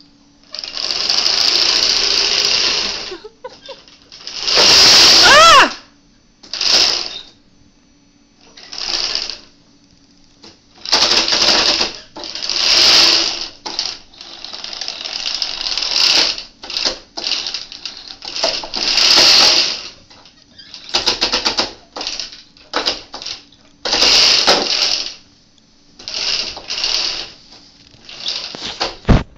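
Homemade tank-tread robot's electric drive motors and #25 roller-chain drive running in a string of short start-stop bursts with a rapid mechanical clatter, the loudest about five seconds in with a whine that rises and falls. The clicking is the roller chain slipping on the motor sprocket, a sign of gearing that is too high for the robot's weight on carpet.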